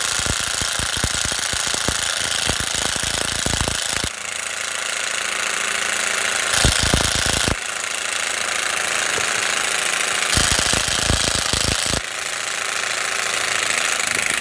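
Milwaukee M12 3/8-inch cordless impact wrench hammering on a truck lug nut in reverse, held on for the whole stretch. The rapid hammering comes harder in a few spells. The nut does not break loose: the owner puts it down to the tool being on power setting 1 with a nearly dead battery.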